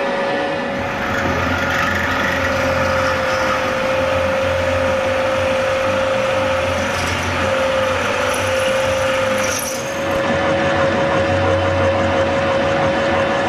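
Bridgeport vertical milling machine running with a drill in its spindle, boring a hole through a steel locomotive frame plate: a steady motor whine that wavers a little in pitch over the noise of the cut. The level dips briefly about ten seconds in.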